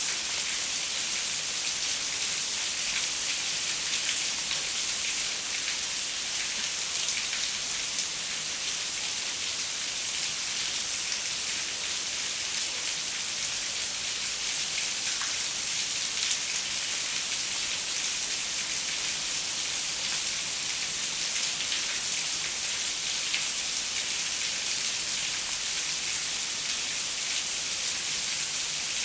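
Steady rain on a window: a dense, even patter of drops, mostly hiss in the upper range, with no thunder.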